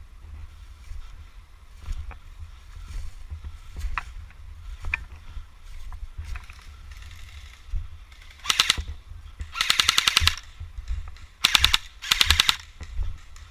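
Airsoft rifle firing on full auto in four short bursts of rapid clicking shots in the second half. A steady low rumble runs underneath.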